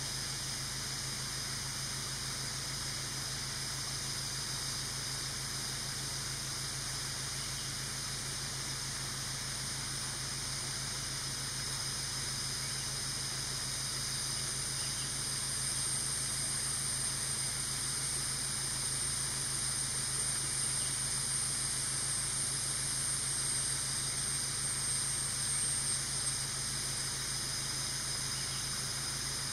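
Steady high-pitched drone of forest insects, growing louder about halfway through, over a low steady hum.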